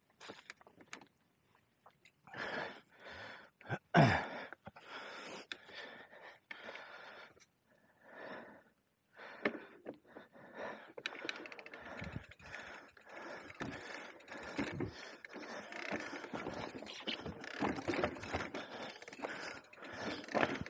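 A mountain biker breathing hard in short gasps, with one heavy thump about four seconds in. From about halfway the Radon Deft e-mountain bike clatters and rattles over rough, rocky trail, with many quick clicks.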